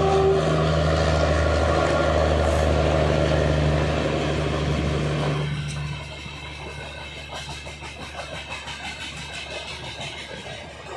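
The last moment of a WAP-4E electric locomotive's horn, then a loud low hum as the locomotive passes at speed. About six seconds in this gives way to the lighter rattle and clicking of passenger coaches rolling by at about 71 km/h.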